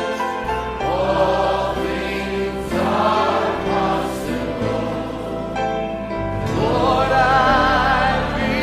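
Music: a choir singing a slow worship hymn in long held notes over a sustained low accompaniment, the voices wavering with vibrato near the end.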